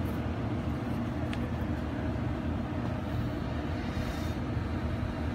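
Steady low rumble and hum of running machinery, even throughout, with a faint click about a second in.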